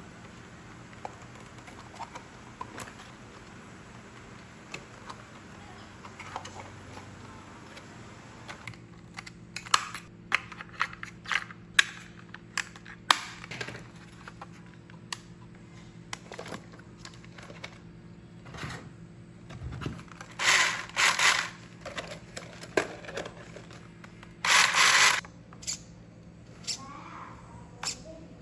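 Unboxing handling: scattered plastic clicks and scrapes as the toy and its parts are handled, with a few longer rustling scrapes later on, the longest about a second.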